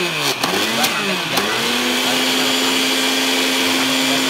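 Signora NutriBlend personal blender motor chopping fruit. For about the first second and a half it is pulsed, speeding up and slowing down about twice a second, then it runs steadily at full speed.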